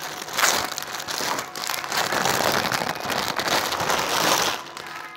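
Plastic clothing packaging crinkling and rustling as it is handled and pulled about, an irregular crackle that eases off near the end.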